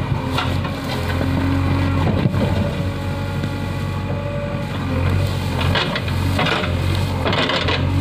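JCB backhoe loader's diesel engine running steadily under load while the rear bucket digs and drags through soil and woody debris. Scraping and clanking knocks come from the bucket and arm, several of them close together in the second half.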